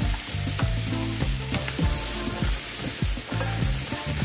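Crispy idli pieces being stirred into hot oil and spice powders in a pan: a steady sizzle, with repeated scrapes and knocks of the spatula against the pan.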